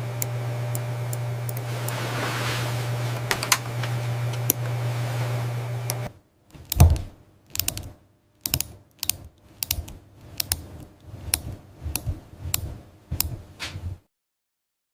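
A steady machine hum with a low drone and a few sharp clicks, cut off abruptly about six seconds in. A run of irregular mechanical clicks and taps follows, about two a second, and stops suddenly near the end.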